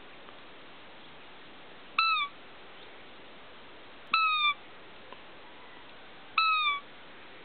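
A roe deer lure call, blown to bring in a roebuck. It gives three short, high, squeaky calls about two seconds apart, each falling slightly at the end, imitating a doe's fiep.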